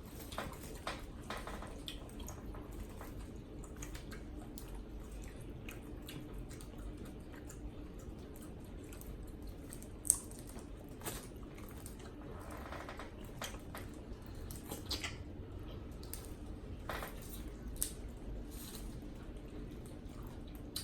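Close-up eating sounds from a saucy seafood boil: wet smacking, chewing and sticky squishes of food being handled, with scattered small clicks and one sharp click about ten seconds in, over a steady low hum.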